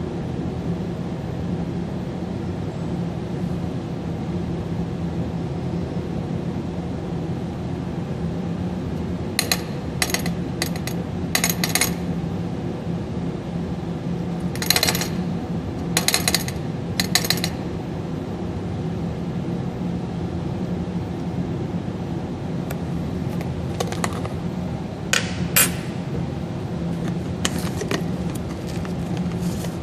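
A steady low hum, with clusters of sharp clinks and clicks of a glass test tube knocking against a perforated metal rack, the first cluster about a third of the way in and more near the middle and the end.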